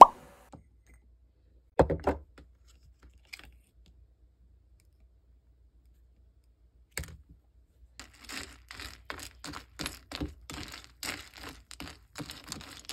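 Typing on a computer keyboard: a few soft knocks in the first seconds, a quiet gap, then a quick, irregular run of key clicks through the second half.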